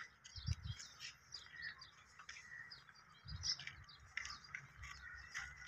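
Small birds chirping faintly, many short high calls scattered through, with a few soft low thumps underneath.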